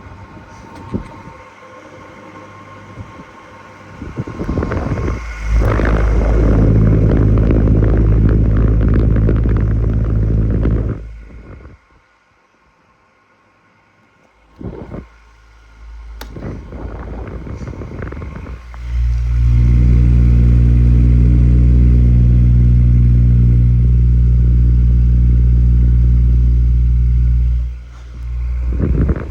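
Stand fan's electric motor giving a loud, steady low hum, in two long runs of several seconds that each start and then cut off, with a near-silent pause between them.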